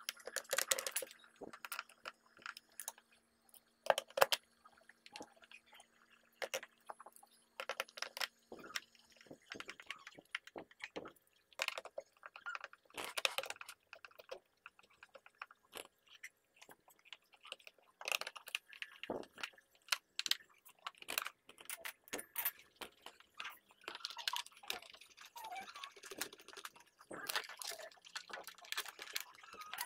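Irregular small clicks, knocks and rattles of a hand tool and hard plastic as a Yamaha NMAX scooter's plastic CVT cover is pressed back into place and its bolts are worked in.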